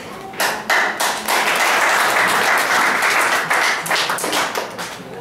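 Audience applauding: a few single claps, then a burst of applause about a second in that thins to scattered claps near the end.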